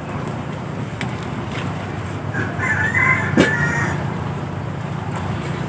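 A rooster crows once, a pitched call lasting about a second and a half that starts about two and a half seconds in, over a steady low rumble. A sharp click comes near the middle of the crow.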